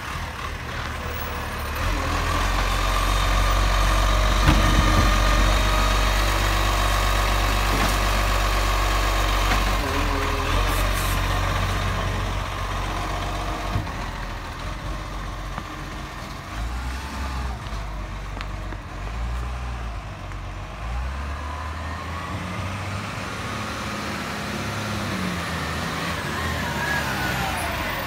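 Dennis Eagle side-loader garbage truck's diesel engine running as the truck drives up close and pulls in at the kerb. It is loudest over the first several seconds, then eases off with the engine note rising and falling.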